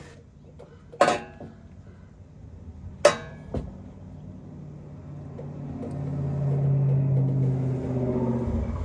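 Two sharp metallic clanks, about a second and three seconds in, as a hand tool knocks against hose clamps and metal fittings under the Can-Am Maverick X3's engine. From about halfway, a steady low hum grows louder.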